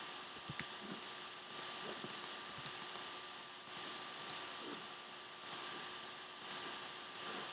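Computer mouse and keyboard clicks while working in 3D software: a dozen or so light, irregular clicks, some in quick pairs, over a faint steady hum.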